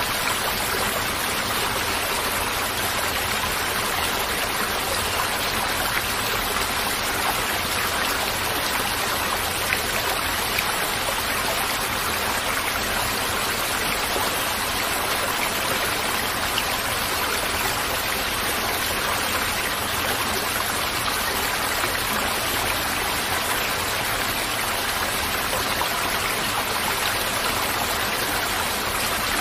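Steady rush of flowing stream water, unbroken and even.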